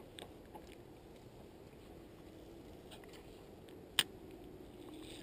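A single sharp click about four seconds in, over faint steady outdoor background with a few light ticks, as the propped fishing rod is picked up and handled.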